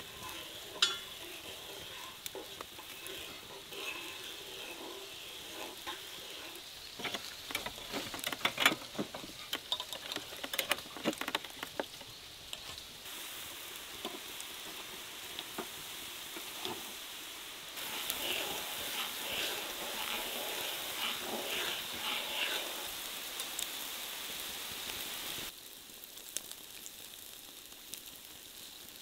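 Food and oil sizzling over a charcoal grill, a steady crackling hiss, with a cluster of sharp clicks about a third of the way in and a louder, busier stretch of crackling in the latter half. The sound changes abruptly several times.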